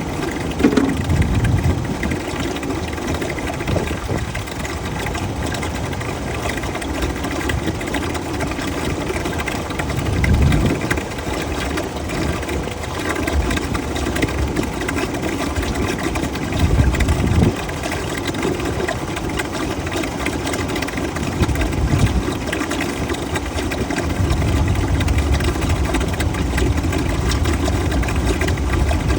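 A vacuum unit catching the draining transmission fluid runs steadily with an engine-like drone. There are a few brief low swells, and it gets slightly louder about 24 seconds in.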